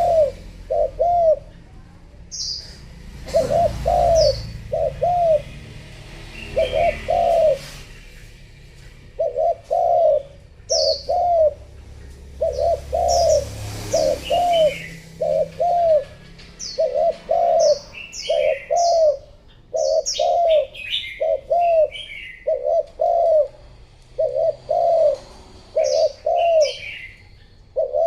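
Female spotted dove cooing, short low coos in pairs and threes repeated over and over: a hen's call of the kind used to rouse male doves. Other small birds chirp higher in between.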